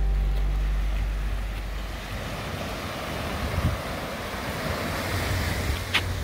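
The last chord of an acoustic guitar dies away, then surf washes up on a sandy beach, swelling toward the end, with wind on the microphone. A single sharp click comes just before the end.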